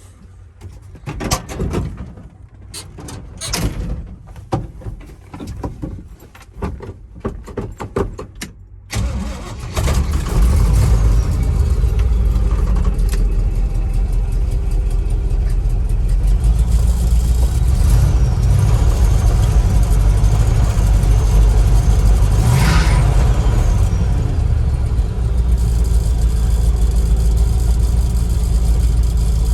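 A few seconds of scattered knocks and clatter, then a vehicle engine starts about nine seconds in and runs steadily.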